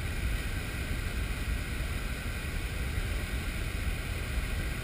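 Steady low rumble of a flash-flood waterfall of muddy water and rocks pouring off a canyon cliff, muffled by a GoPro waterproof case.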